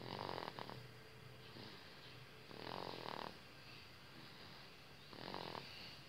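Sleeping baby snoring, three snores about two and a half seconds apart.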